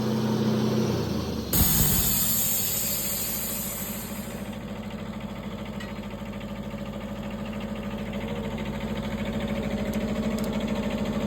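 Wood-Mizer LT15 Wide sawmill's engine running steadily with an even pulsing beat. About a second and a half in, the sound changes abruptly, with a hiss that dies away a few seconds later.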